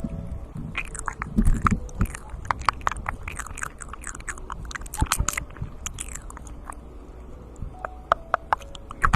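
Close-miked ASMR mouth sounds: quick, irregular wet clicks and smacks of lips and tongue, with a few softer low thumps.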